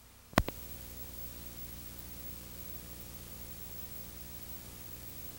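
Blank tape audio at the end of the programme: one sharp click a little under half a second in, then steady hiss with a low hum.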